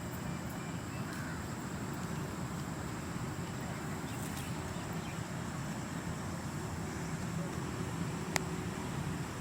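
Steady outdoor ambience dominated by a low, even rumble, with a faint high steady tone above it and a single sharp click about eight seconds in.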